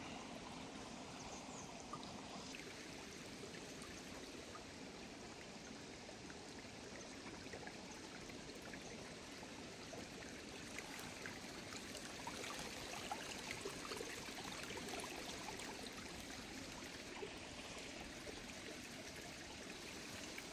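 A small stream or brook babbling steadily as a faint, even rush of running water, with an occasional faint click.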